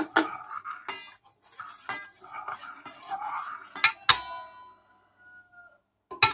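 A spoon stirring quickly in a glass bowl, clinking against the glass again and again. About four seconds in, one louder clink rings on for over a second.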